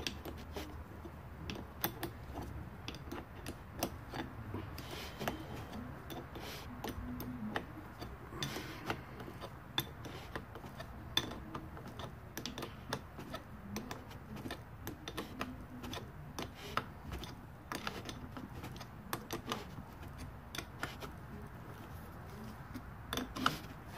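Irregular light metallic clicks and clinks of a small hand wrench turning and seating the nuts that hold a Weber 34 ICT carburetor to its intake manifold.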